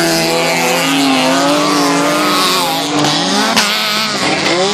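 Engines of several stock cars racing on a dirt track, revving up and down with their pitches rising and falling over one another, with a short sharp knock about three and a half seconds in.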